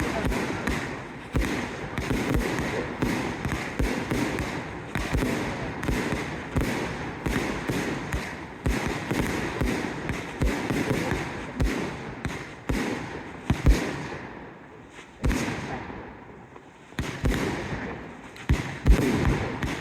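Fireworks display: a fast, steady string of shell bursts, deep booming thuds over continuous crackling. The bursts thin out and fade briefly about three-quarters of the way through, then pick up again, with the loudest bangs near the end.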